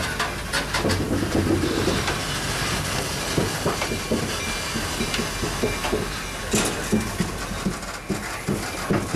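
Steam-hauled train on the move, its wheels clacking over the rail joints in a repeated knocking, with a hiss of steam.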